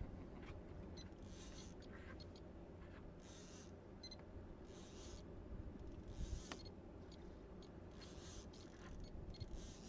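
Fishing reel being cranked to bring up a hooked lingcod: short gritty mechanical scraping bursts about every one to two seconds, over a low steady rumble.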